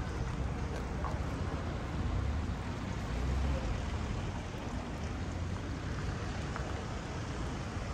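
Steady outdoor background noise with wind buffeting the microphone, a fluctuating low rumble, and a few faint ticks.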